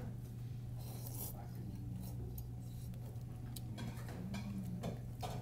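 Restaurant room tone: a steady low hum with a few faint clicks of a fork and chopsticks against a soup bowl while noodles are eaten.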